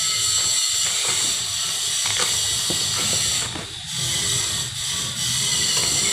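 Miracle fruit flesh being scraped by hand: a fast run of rasping strokes, with short breaks about three and a half and five seconds in.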